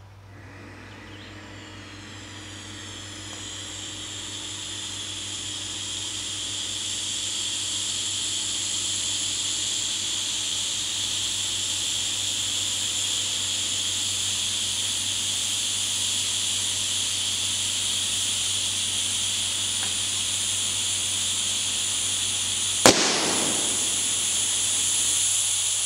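Compressed air hissing out of an air-compressor nozzle into a large latex balloon, growing louder over the first several seconds and then holding steady as the balloon fills. About 23 seconds in, the balloon bursts with a single sharp bang, and the air keeps hissing from the open nozzle.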